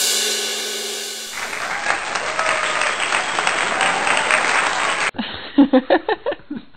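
A ringing chime fades out, then clapping from an edited-in applause sound effect runs until it cuts off suddenly about five seconds in, followed by a few short, irregular, louder sounds.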